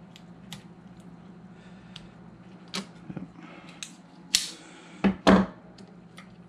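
Hands handling the small parts of a receiver's tuner dial-pointer assembly: scattered light clicks and taps, with three sharper clicks or knocks between about four and five and a half seconds in.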